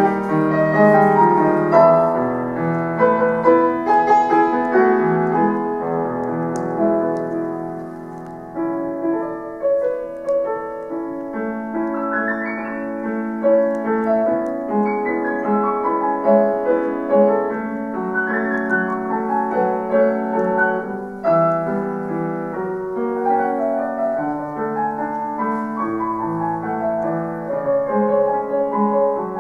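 Solo grand piano playing a pop-song arrangement, with full chords and a moving melody: fuller and louder at first, dropping softer about eight seconds in, then building again.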